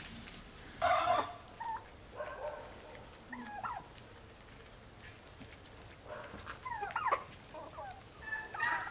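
A flock of chickens and turkeys calling: one loud call about a second in, a few shorter ones after it, then a quiet spell and a run of calls in the last three seconds.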